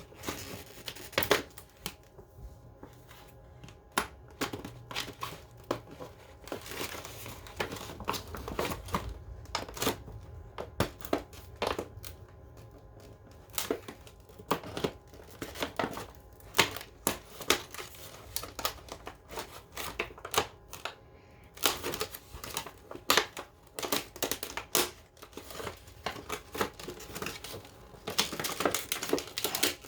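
Product packaging being cut and torn open by hand: a long run of irregular crinkling, tearing and sharp clicking noises.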